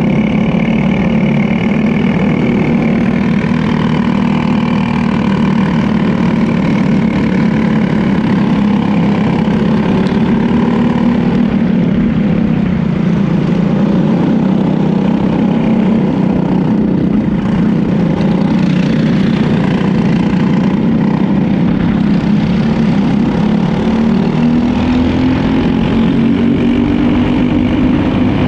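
Briggs & Stratton LO206 four-stroke kart engine running at racing speed, heard from on board the kart, its pitch dropping and rising through the corners and climbing steadily near the end as the kart accelerates.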